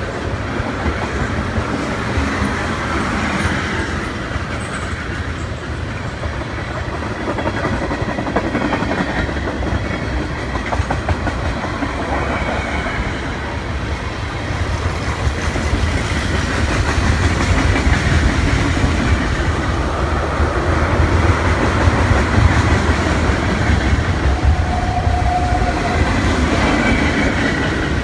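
Freight train's tank cars rolling past at steady speed: a continuous rumble with the clickety-clack of steel wheels over rail joints, growing louder about halfway through.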